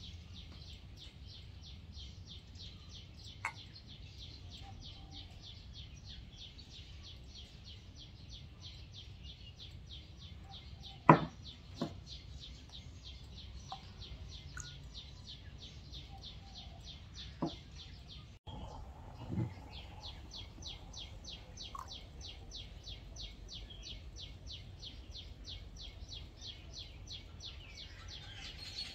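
Steady high-pitched chirping from a small animal, about four chirps a second, with a few sharp clinks on top. The loudest clink comes about eleven seconds in, and a duller knock follows near twenty seconds.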